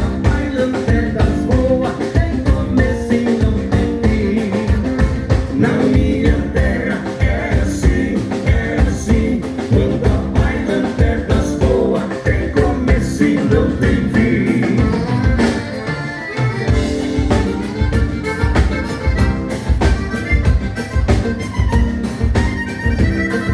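Live band playing a vanera (vanerão), a southern Brazilian gaúcho dance rhythm, on drum kit and other instruments with a steady, driving beat and singing at times.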